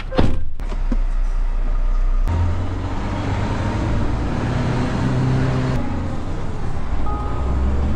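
Scania G-cab truck's diesel engine and road noise heard from inside the cab as it pulls away and drives. The engine note climbs in the middle and the sound changes abruptly a few times.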